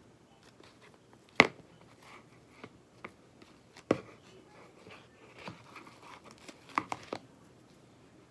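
Spoon stirring slime mixture in a bowl, knocking against the bowl: a sharp knock about a second and a half in, another near four seconds, and a quick cluster of three around seven seconds, with soft crinkly scraping in between.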